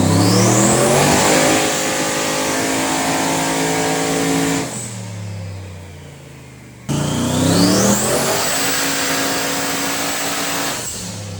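Vehicle engine accelerating and then holding speed, with a high whistle that rises along with it. It is heard twice, as two spliced takes: the first eases off about four and a half seconds in, and the second starts abruptly about seven seconds in.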